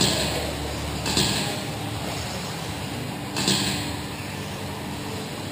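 Electric RC racing buggies with 17.5-turn brushless motors running on an indoor dirt track: a steady background of motors and tyres, with three brief swishes as cars pass close by, near the start, about a second in and about three and a half seconds in.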